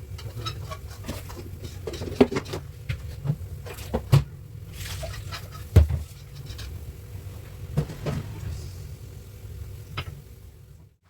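Irregular knocks and clicks, the loudest about two, four and six seconds in, over a steady low hum.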